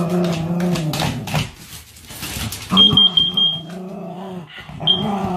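A small shaggy terrier-type dog growling in long, low stretches as it attacks a plug-in wall device, with scratching and knocks at first. A rapid high electronic beeping cuts in about three seconds in, and a short beep sounds near the end.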